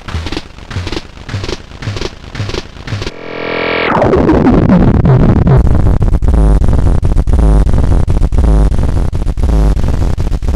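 Electronic beat played through a modded PT2399 chip delay. About three seconds in, a held glitchy tone cuts in for under a second; then the delay swells into a loud, dense wash of repeats whose pitch slides down, the beat still pulsing underneath.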